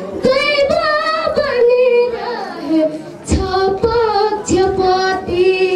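A boy singing into a handheld microphone, holding long notes that waver in pitch, with short breaks between phrases.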